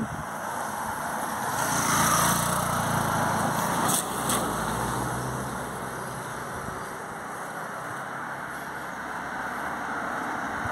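Road traffic passing close by: a motorcycle and a car go past, their engine and tyre noise swelling to its loudest about two seconds in and fading after about four seconds to a steady background traffic noise.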